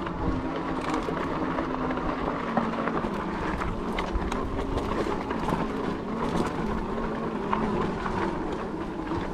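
Fat-tire electric bike climbing a muddy dirt hill under motor power: steady riding noise from the tyres on the ground, with a low steady hum and scattered small clicks.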